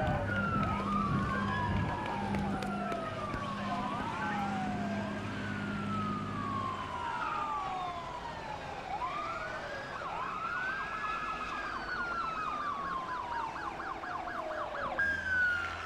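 Several police car sirens wailing at once, their rising and slowly falling tones overlapping. One switches to a fast yelp for a few seconds about ten seconds in. A low steady drone sits underneath and stops about seven seconds in.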